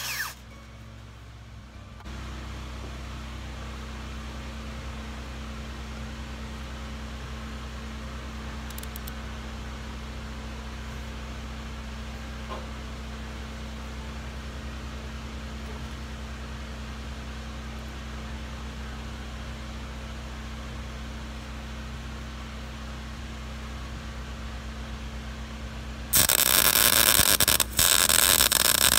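An angle grinder spins down at the very start, then a steady low hum runs on. Near the end a Lincoln 140 MIG welder strikes its arc, loud and dense, in two runs with a brief break between them.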